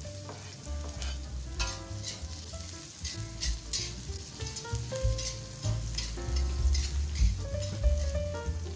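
Chopped garlic and shallots sizzling in hot oil in a pan while being stirred, with a few sharp clinks and scrapes of the utensil against the pan.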